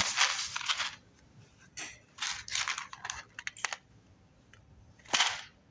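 A paper plate of dry Cheerios being handled, giving a run of short, scratchy rattles and clicks in irregular bursts.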